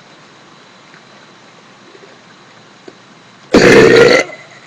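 A young woman burps once, a short loud belch of under a second about three and a half seconds in.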